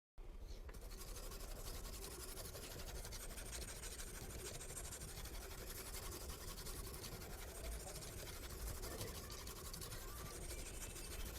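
Knife blade scraping steadily across a diamond sharpening stone.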